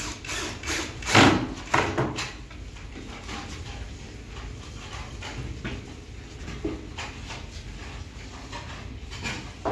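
Laminated board cabinet being handled and shifted on a tiled floor: a cluster of sharp knocks about a second in, the first the loudest, then fainter scattered knocks and scrapes.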